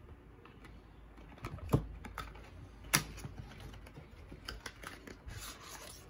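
Small cardboard skincare boxes handled and opened by hand: soft taps and light clicks, with two sharper knocks about two and three seconds in, and a short rustle near the end as the box is opened.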